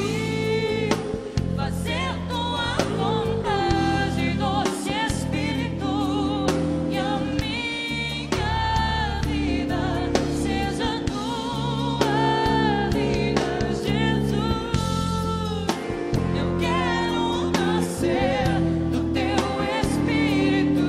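Gospel song from a band: singing with wavering vibrato and backing voices, over bass and a drum kit.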